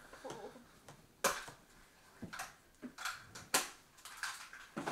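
Sharp clicks and rustles of handling at irregular intervals, the loudest about a second in, again at about three and a half seconds, and near the end.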